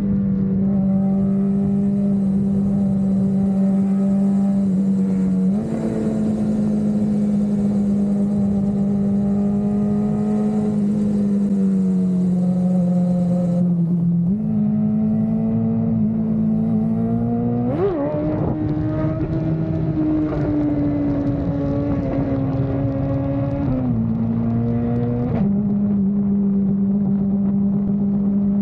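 Superbike inline-four engine running at steady cruising revs. Its pitch steps up and down every few seconds with throttle and gear changes, and about two-thirds of the way in there is one quick rev blip.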